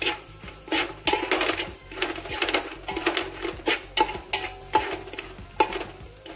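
Spoon stirring and scraping fried onions and ground spices around a metal pot, with repeated irregular clinks and scrapes against the pot.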